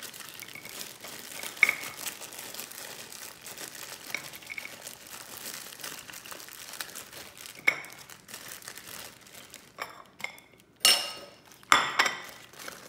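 Plastic zip-top bags of dates crinkling and rustling as they are handled, with a few light clicks. The loudest rustles come near the end, as a bag is picked up.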